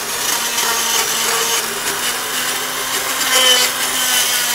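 Motorized equine dental float running, its grinding head rasping a horse's lower cheek teeth to take off the sharp edges on the tongue side. A steady motor hum under a continuous gritty grinding.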